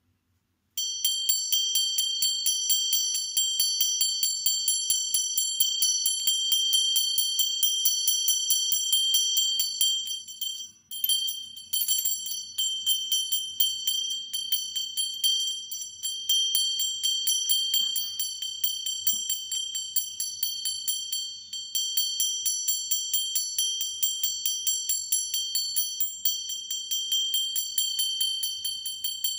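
Cicada calling: a loud, shrill ringing tone with a metallic edge, pulsing rapidly and evenly. It starts abruptly about a second in and breaks off briefly near the middle.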